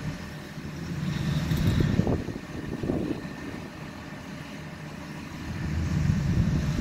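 Engine of a truck-mounted crane running as it lowers a load, a low rumble that swells louder twice.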